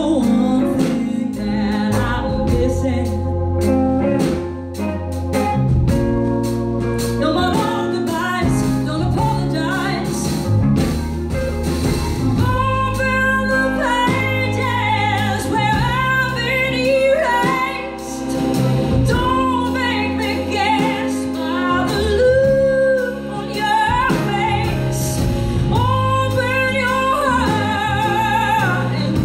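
Female lead vocalist singing a soul ballad over a live band, with long held notes that waver with vibrato and sliding vocal runs.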